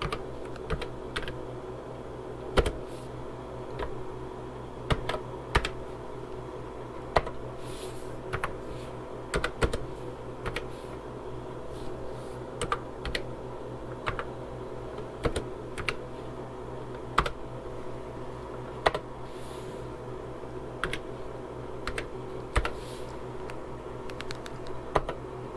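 Irregular key clicks from typing on the Radio Shack TRS-80 Model II's keyboard as a BASIC program is entered, over a steady hum.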